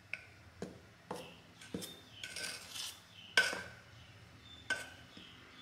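A metal spoon stirring dry flour in a glass mixing bowl: irregular clinks against the glass, a few ringing briefly, with soft scraping through the flour between them. The loudest clink comes a little past halfway.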